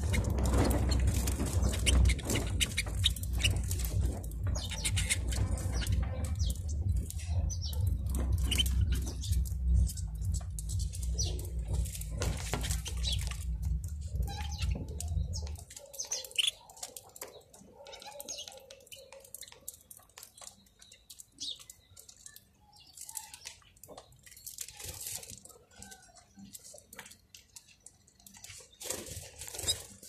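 Small caged finches, canaries among them, chirping in quick short calls, with some wing flutter. A steady low hum under the chirps cuts off suddenly about halfway through.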